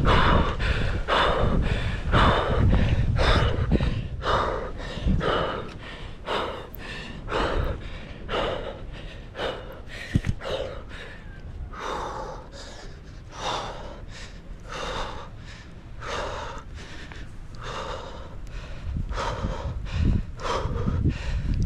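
A tree climber breathing hard and fast close to the microphone, a steady run of quick breaths from the exertion of climbing down in freezing cold. A low rumble, like wind on the microphone, fills the first few seconds.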